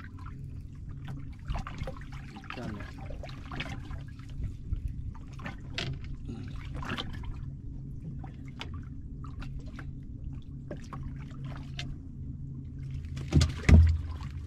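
Water splashing and trickling at a boat's side as a hooked sunfish is reeled in on a spinning rod, over a steady low hum. About a second before the end come two loud knocks as the fish is lifted from the water.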